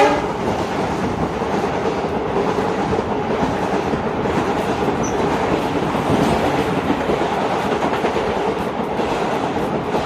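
Passenger coaches of an express train passing at speed: a steady rumble and rush, with wheels clattering over the rail joints.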